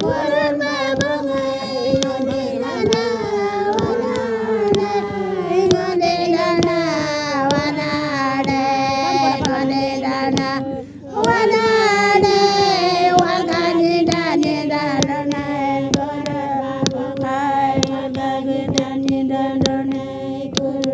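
Women singing a traditional Ngaanyatjarra ceremonial song together, each long phrase sliding steadily down in pitch over a regular beat of sharp taps. The singing breaks about eleven seconds in, then a second falling phrase starts high again.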